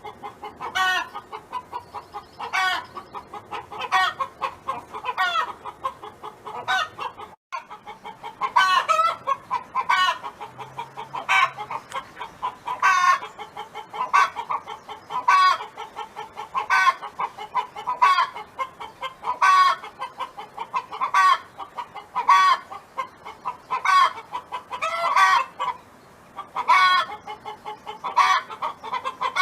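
Domestic hen clucking steadily in a repeating rhythm: a louder call about every second and a quarter, with quick clucks between. The sound drops out briefly about seven and a half seconds in.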